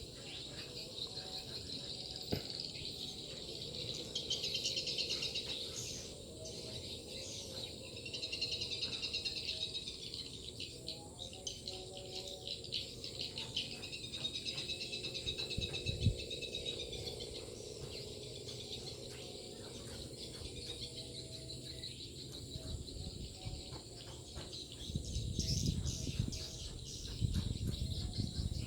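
Swiftlets twittering: repeated rapid, high chirping trills that come and go in swells, over a steady high insect buzz.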